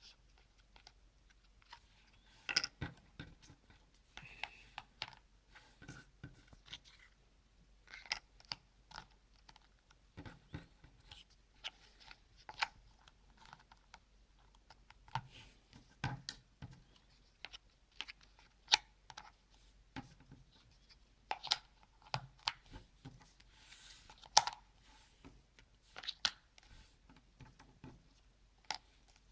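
Cardboard jigsaw puzzle pieces being handled and pressed into place: light, irregular taps, clicks and rustles, a few every second.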